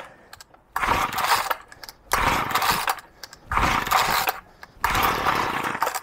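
Cold two-stroke petrol strimmer engine being pull-started on full choke: four tugs of the recoil starter, each a short whirr of the engine turning over without catching. The hard starting is a fault the owner puts down to a blocked carburettor jet.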